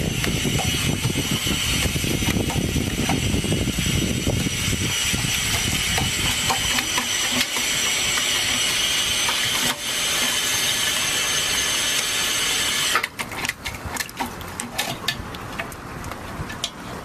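Push-button drinking fountain running water into its stainless-steel basin in a steady hiss while a puppy paws and splashes at it. The flow cuts off suddenly about three-quarters of the way through, leaving light splashes and taps of paws in the water against the metal bowl.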